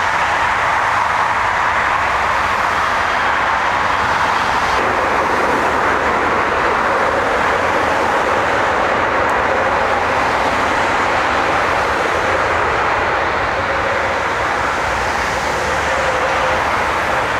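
Jet airliner engines running at the airport: a loud, steady rushing noise with a faint hum in it.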